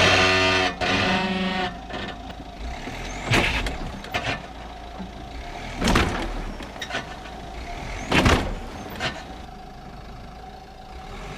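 Derbi supermoto's engine running, with three short louder surges about three, six and eight seconds in.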